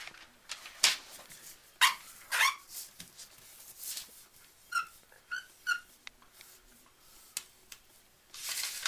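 Pencil drawing on a sheet of paper laid on a table: a few quick scratchy strokes, then three short high squeaks about five seconds in, and a longer rustling stroke near the end.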